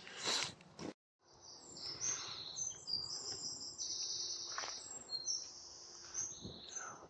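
Songbirds singing: many short, high chirps and whistles, with one longer, steady whistle in the middle. There is a brief rustle at the very start.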